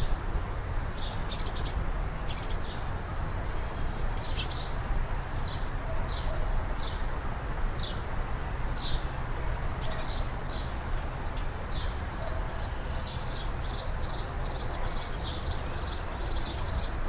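Small birds chirping at a bird feeder: short high chirps, scattered at first, then a quick regular run of about three chirps a second in the second half, over a steady low background noise.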